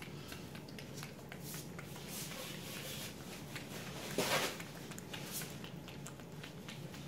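A domestic cat eating chicken and chicken juice from a bowl: a steady run of small clicks from its chewing and lapping, with a brief louder rustle a little past four seconds in.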